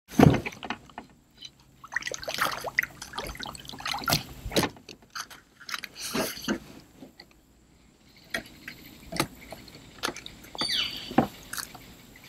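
A hooked largemouth bass being landed into a kayak: irregular water splashes, knocks and rattles of the landing net and of handling against the kayak hull, the loudest right at the start.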